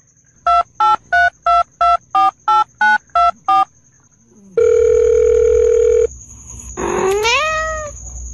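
Touch-tone telephone keypad beeps: ten short presses, about three a second, with pitches that vary as a number is dialed. They are followed by a steady tone for about a second and a half and a short call that rises in pitch near the end.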